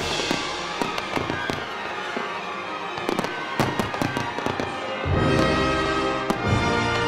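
Fireworks popping and crackling in quick, irregular strings over background music. The music's bass drops out and comes back in about five seconds in.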